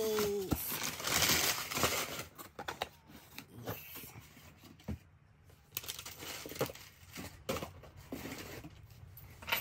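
Brown kraft packing paper crumpling and rustling as it is pulled out of a cardboard box, loudest in the first two seconds. After that come lighter rustles and a few soft knocks as the packages are handled.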